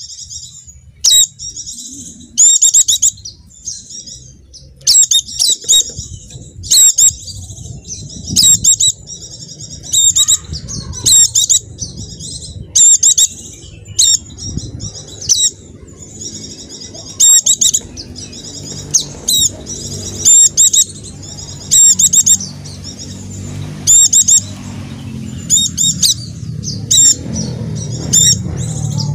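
Pleci dakun (white-eye) giving short, high twittering chirps in repeated bursts every second or two, over a low background rumble that swells near the end.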